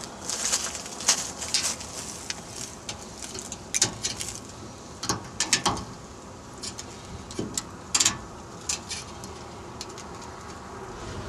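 Sleet ice pellets ticking and crackling in irregular sharp clicks, some in quick clusters, the loudest about four, five and eight seconds in.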